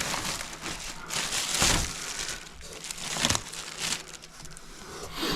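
Packaging material crinkling and rustling as it is handled and pulled off, in irregular bursts, loudest about a second and a half in and again past the three-second mark.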